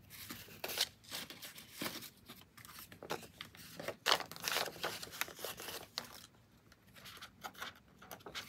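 Paper banknotes rustling and crinkling as bills are counted and sorted by hand, in a string of short, crisp rustles with a quieter spell a little after the middle.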